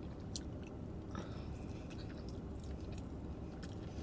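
Close-up chewing of food: soft, faint wet mouth clicks and smacks over a low steady hum.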